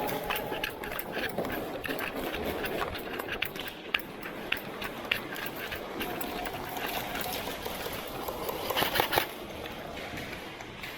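Airsoft guns firing: scattered sharp cracks throughout, with a louder, denser burst about nine seconds in.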